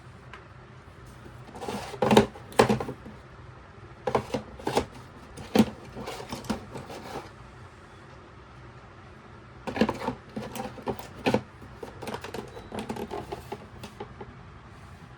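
Handling noise: irregular clicks and knocks of hard objects, coming in four clusters over a faint steady low hum.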